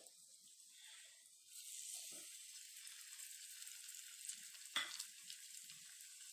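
Egg-dipped bread rolls frying in shallow oil in a pan: a faint, steady sizzle that grows a little louder about a second and a half in, with a couple of light clicks.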